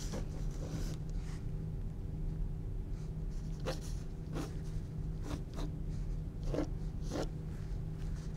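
Pencil scratching across a textured canvas in short sketching strokes, about eight separate strokes, more of them in the second half, over a steady low hum.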